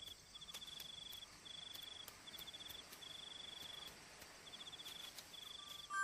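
Crickets chirping faintly at night: a high, rapidly pulsed trill repeating about once a second, with faint scattered ticks.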